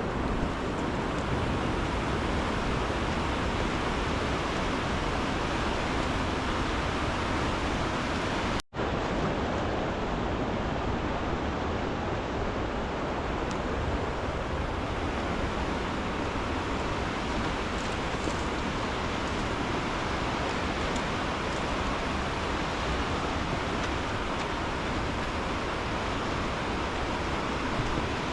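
Steady rushing of water, an even noise with no distinct events, cut off for a split second about nine seconds in.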